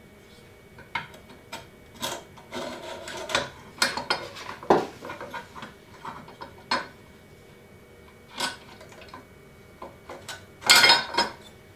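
Irregular clinks, knocks and rustling as small metal parts and packaging are handled, with a louder rustling clatter shortly before the end.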